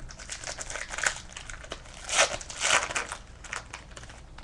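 Shiny foil wrapper of a 2010-11 Playoff Contenders hockey card pack crinkling and rustling as it is opened and the cards are pulled out. The crackles come in an irregular run, loudest about halfway through.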